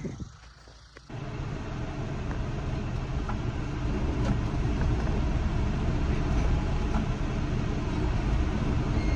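Tractor engine running steadily under load in the field, a heavy low rumble that comes in abruptly about a second in.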